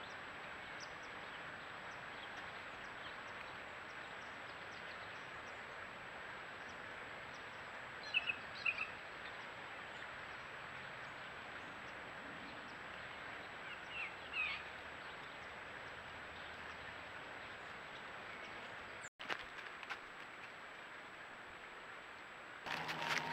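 Steady outdoor background hiss, with a few short bird calls: two close together about eight seconds in and another around fourteen seconds. Near the end a louder rustling in dry leaves starts.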